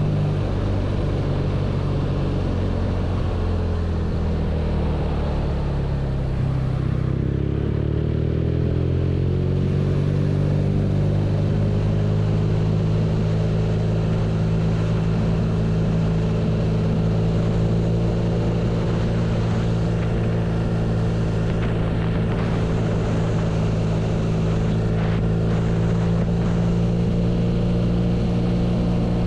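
BMW R nineT's 1170 cc air/oil-cooled boxer twin running: its engine note falls over the first six seconds or so, then climbs again and holds steady.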